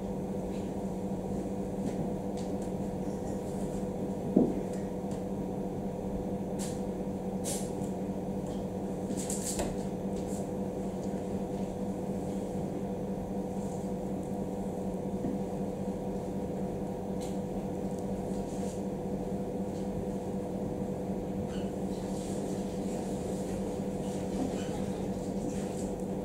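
Steady mechanical hum in a small room, with faint rustles and light taps from a performer moving around and leaning on a table, and one sharp knock about four seconds in.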